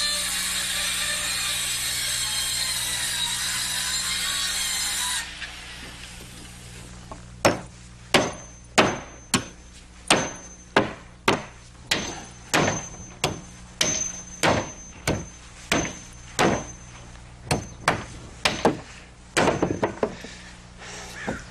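Circular saw cutting through a roof sheathing panel, stopping abruptly about five seconds in. Then a hammer driving nails into the sheathing, about two blows a second, some with a short metallic ring.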